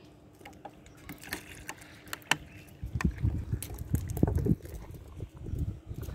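Water glugging and splashing out of a plastic water bottle as it is poured out for the cats to drink, starting about three seconds in, after a few sharp crackles.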